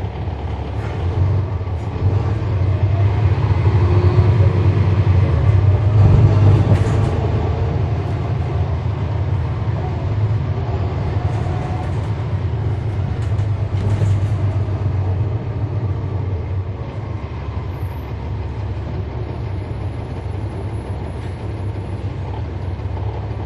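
Cummins ISL9 diesel engine of a 2012 NABI 40-SFW transit bus, heard from inside the bus. It pulls harder and grows louder over the first six seconds or so, eases off, then settles into a steadier, lower running sound after a brief swell midway. The ZF Ecolife automatic transmission is so quiet it is almost unheard.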